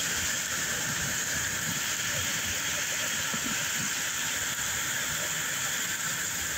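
A storm's steady, even hiss, with irregular low buffeting underneath.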